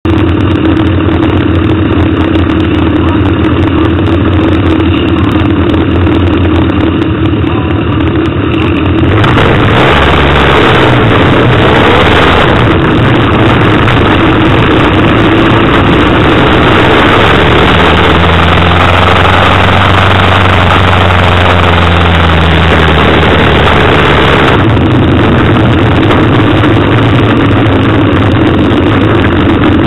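Motorcycle engine idling, then pulling away about nine seconds in, with loud wind rushing over the microphone while riding, easing off again near the end.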